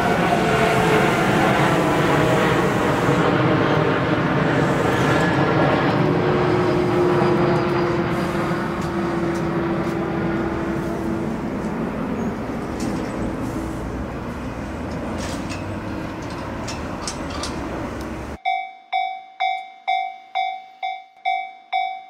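A Hankyu electric train runs past over the level crossing and moves away. Its rumble slowly fades, with a steady tone in the middle and a few sharp ticks near the end. About eighteen seconds in, the sound cuts sharply to a bell-like ding repeating nearly twice a second.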